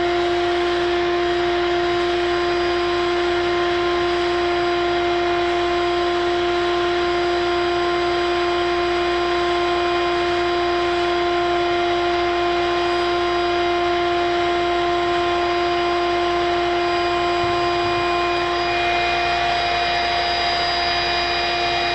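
A machine running steadily, with a constant-pitched whine over a hiss.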